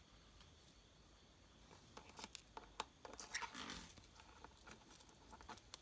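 Faint handling noise as a saw-tooth stag beetle is set back into its clear plastic case of soil substrate: scattered small clicks from about two seconds in, with a brief scratchy rustle in the middle.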